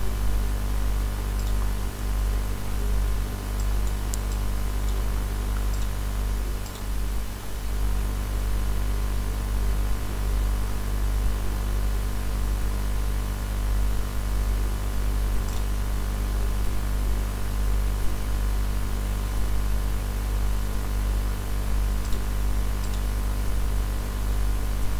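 Steady electrical hum with a hiss of background noise, with a few faint clicks.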